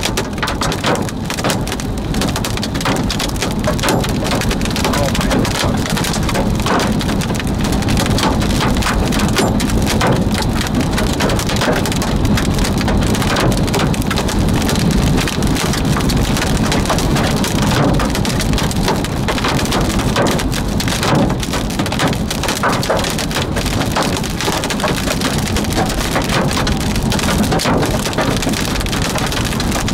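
Rain pelting the roof and windshield of a moving car, heard from inside as a dense, steady patter over the car's low, even drone.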